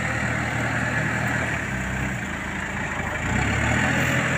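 Backhoe loader's diesel engine running steadily as it drives along a dirt track; its note drops briefly a little past halfway and picks up again.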